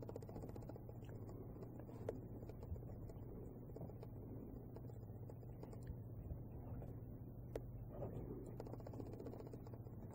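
Faint rustling and a few soft ticks of Abyssinian kittens scuffling on a bedspread and pillows, over a steady low hum.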